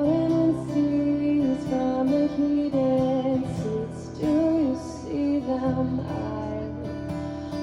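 Live roots-pop music: strummed acoustic guitar under a wavering, sustained melody line.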